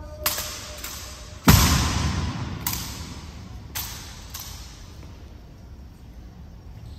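Rifle drill impacts: six sharp knocks in an irregular series over about four and a half seconds, the loudest a heavy thud about a second and a half in, each with a short echo.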